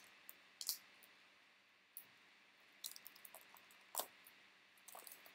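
Faint, scattered clicks and crinkles of a sealed trading-card hobby box being handled, its cardboard and plastic wrap rustling under the fingers, with a quick cluster of ticks about three seconds in.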